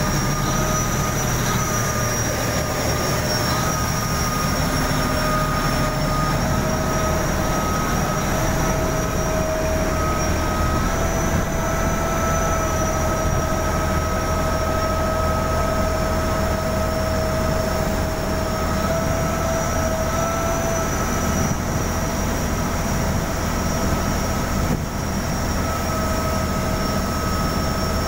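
Chao Phraya Express Boat's diesel engine running steadily under way: a loud, unbroken drone with a steady high whine over it. Water rushes along the hull.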